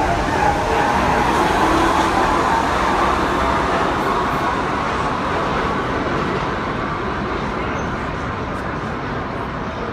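R68 subway train pulling out of the station, its last car passing close and then running off into the tunnel. The rumble of wheels on rail is loudest in the first few seconds and then fades steadily as the train draws away.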